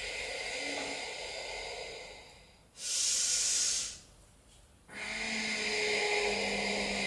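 A person breathing close to the microphone while holding a deep forward fold: a long, softer breath, then a short, loud, hissing breath about three seconds in, then another long breath from about five seconds in.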